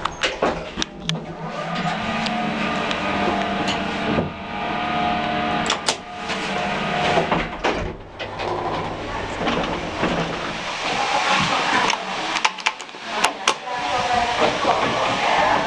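An original 1920s–30s Express lift travelling: its machinery running with a steady hum, with sharp clicks and knocks from the car and its controls, a few near the start, a couple about six to seven seconds in and a cluster about thirteen seconds in.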